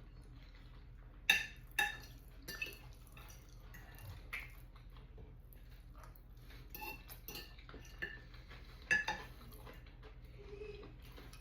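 Cutlery clinking and scraping against a plate in scattered light taps while someone eats spaghetti, the sharpest clinks about a second in and about nine seconds in.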